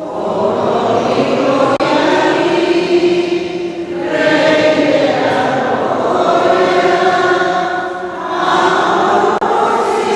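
A choir singing, with long held notes in phrases about four seconds long and short breaks between them.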